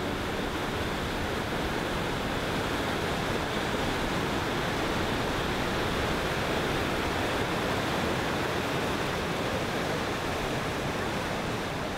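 Steady rushing of river water running out below a log-driving dam, easing slightly near the end.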